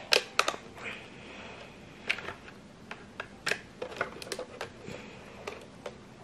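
Irregular sharp clicks and taps of a handheld blender's motor housing being handled and unscrewed with a screwdriver, with a dozen or so knocks spread unevenly.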